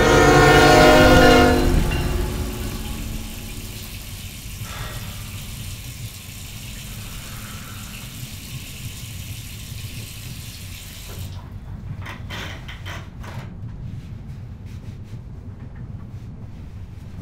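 Train horn sounding a loud chord of several steady tones over a low rumble, cutting off about two seconds in. A quieter low rumble and hiss continue, with a few short clicks about twelve seconds in.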